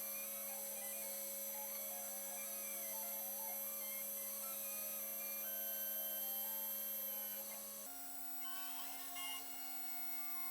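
Custom-built 5-axis CNC machine running a machining program: its axis motors whine in steady tones that jump to new pitches every second or two as the moves change, over a steady low hum. About eight seconds in, the low hum steps up in pitch.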